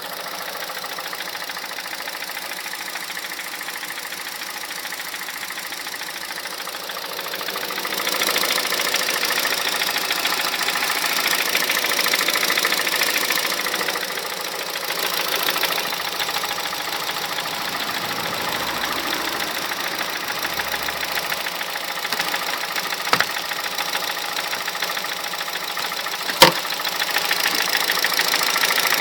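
A 2006 Honda Civic Hybrid's 1.3 IMA engine running with a knock. The owner cannot place the knock (camshaft, valves, bearings, timing chain or piston slap) and says it goes silent above 2200 rpm. The engine noise gets louder about a quarter of the way in, and a single sharp click stands out near the end.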